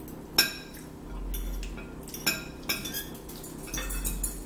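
Forks clinking against plates while eating: a run of short, sharp clinks, several of them less than a second apart.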